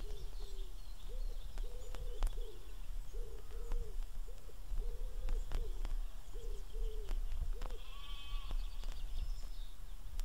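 Sheep and lambs bleating over and over in short calls, with small birds calling faintly behind them and one brief trilling call about eight seconds in. Sharp clicks of vinyl record surface noise run through it.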